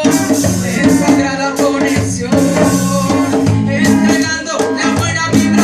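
Reggae music with singing, played loud over a sound system, with a steady bass line.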